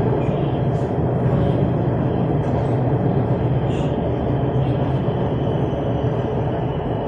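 Steady running noise inside an electric metro train carriage while under way between stations: a constant low rumble with a steady hum underneath.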